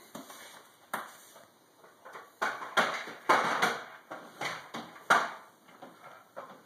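A baby moving about on a wooden floor and foam play mats and handling a plastic toy: a string of irregular knocks, bumps and rustles, one about a second in and a busier run in the middle.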